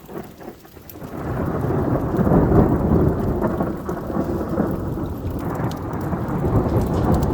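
Rolling thunder from a lightning strike, building about a second in and rumbling on through the rest, with steady rain falling.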